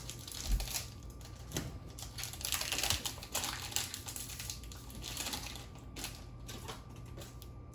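Trading-card booster packs being handled: a run of light clicks and taps, with two stretches of crinkling foil wrapper, about two and a half seconds in and again about five seconds in.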